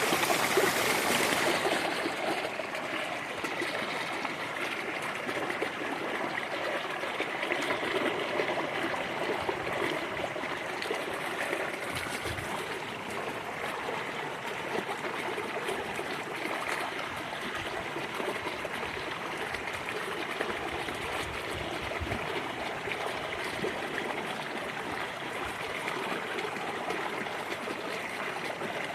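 Small stream flowing and trickling steadily over stones.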